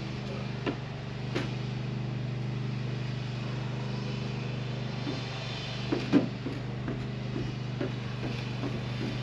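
Steady low machine drone, with a few scattered knocks and thumps on a wooden staircase, the loudest about six seconds in, and footsteps coming down the wooden steps near the end.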